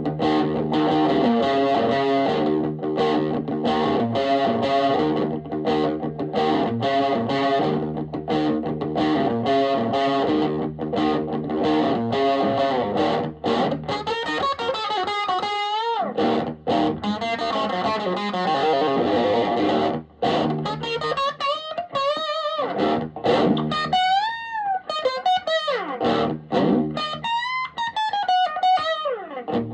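Electric guitar playing a steady, rhythmically picked chord pattern, then from about halfway a lead line with wide string bends and vibrato.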